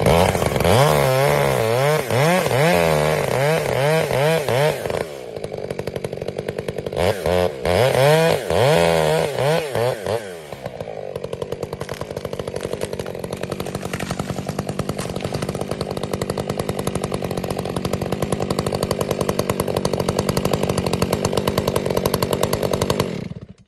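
Chainsaw cutting into a tree trunk. For the first ten seconds or so its engine pitch wavers up and down under load, with a brief dip around five seconds in. It then runs steadier until the sound stops abruptly near the end.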